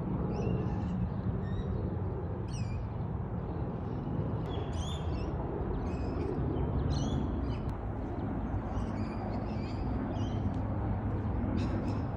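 Birds calling outdoors: short calls repeated every second or so, over a steady low rumble.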